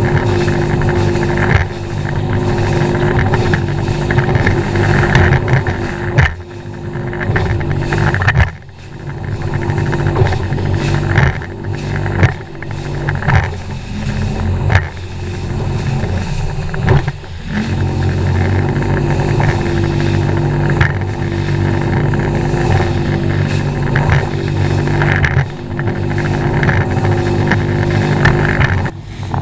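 Outboard motor of a Champion bass boat running at speed across rough water: a steady engine drone, with wind buffeting the microphone and the hull slapping through the chop. The engine sound dips briefly twice, about a third of the way in and just past halfway.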